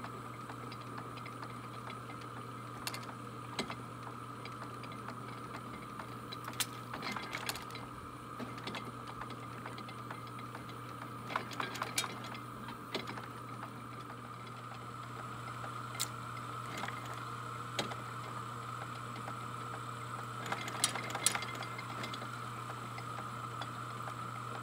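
Early-1900s Deering reaper's rake mechanism running, driven by a small electric motor: a steady motor hum with scattered clicks and clanks from the gears and rake arms.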